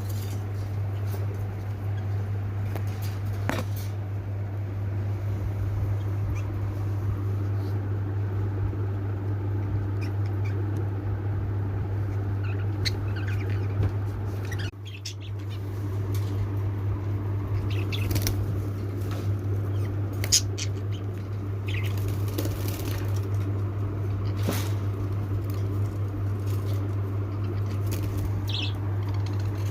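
Pet lovebirds moving about in their cage: scattered clicks and rustles and a brief chirp near the end, over a steady low hum.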